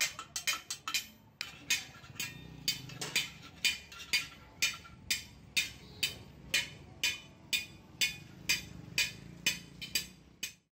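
Hand hammer striking a steel hoe blade on an anvil, each blow with a short metallic ring. A few quick blows come first, then a steady beat of about two blows a second; the sound cuts off suddenly near the end.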